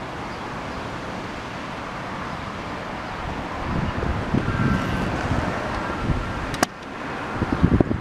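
Wind buffeting the microphone in gusts, stronger in the second half. A faint thin whine sounds for a couple of seconds about halfway through, and a single sharp click comes near the end.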